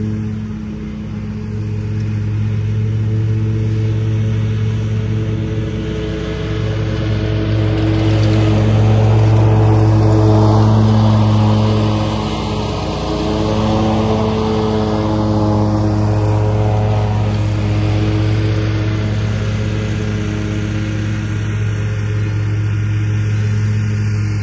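Ferris ISX 800 zero-turn mower's 26 hp EFI Kawasaki V-twin engine running steadily while mowing. It grows louder as the mower passes close by around ten seconds in, then eases off a little.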